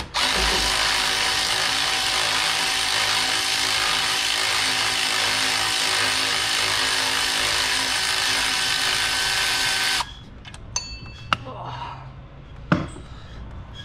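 Cordless power tool running steadily for about ten seconds, then stopping suddenly, followed by a few sharp clicks and knocks of parts being handled.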